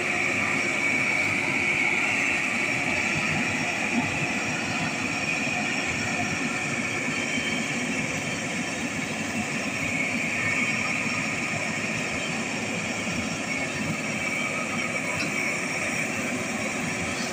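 Hino truck's diesel engine running steadily while the loaded ISO-tank rig is stuck, unable to climb the grade, with a steady high-pitched whine over the engine sound.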